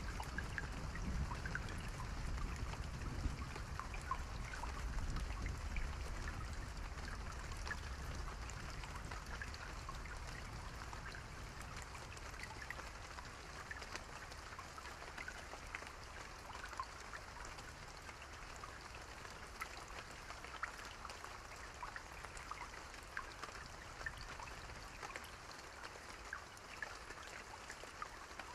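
Steady rain with many distinct close drops ticking over an even hiss. A low rumble underneath fades out over the first several seconds.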